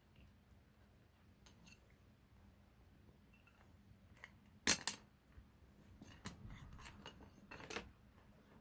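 Wooden disposable chopsticks on a homemade rubber-band cat toy clacking, two sharp clacks a little past halfway, then a run of lighter taps and scrapes near the end as the cats bat and drag the toy.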